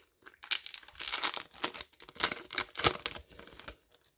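A foil Yu-Gi-Oh booster pack being torn open and crinkled in the hands: a dense run of crackling from about half a second in until near the end.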